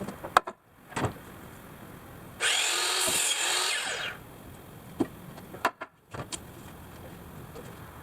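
A power tool runs in one steady burst of about a second and a half near the middle, with scattered sharp knocks of carpentry work before and after.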